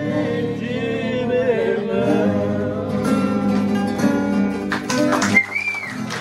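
Acoustic guitars strummed while a man sings. About five seconds in, the music breaks off and a short high tone rises and falls.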